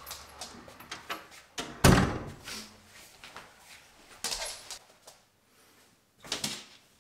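A wooden front door shut with a firm bang about two seconds in. Softer rustles and a light knock follow, the last near the end, as a flannel shirt is hung on a brass wall hook.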